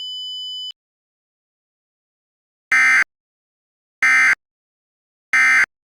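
A steady high electronic tone that cuts off under a second in, then, after a pause, three short identical bursts of Emergency Alert System data about 1.3 seconds apart: the SAME end-of-message code, signalling that the alert message is over.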